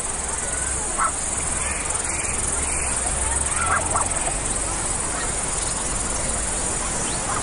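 Steady high-pitched chirring of insects such as crickets, with a low rumble underneath that eases about four seconds in.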